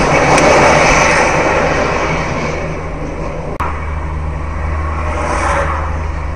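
Road and engine noise inside a moving car, picked up by a dashcam: a steady low hum under a wash of tyre and wind noise. A short click about three and a half seconds in, after which the low hum is steadier.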